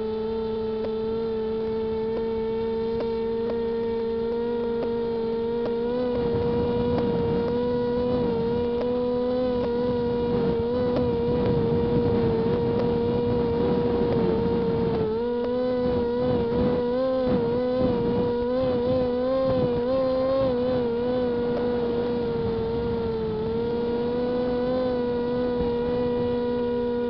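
Electric motors and propellers of a WLZX W500 model aircraft giving a steady high whine. From about six seconds in to about twenty-three seconds the pitch wavers and a rushing noise comes up as the throttle is worked, then the whine settles back to a steady tone.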